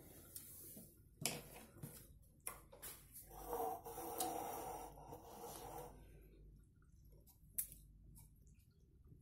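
Eating rice with the hand: fingers mixing rice and dal on a plate, with soft mouth sounds of eating and chewing in the middle and a few small clicks.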